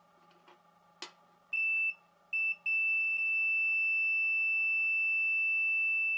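Multimeter continuity buzzer sounding, signalling a resistance below the continuity threshold. There is a click about a second in, then two short high-pitched beeps, then a steady unbroken beep.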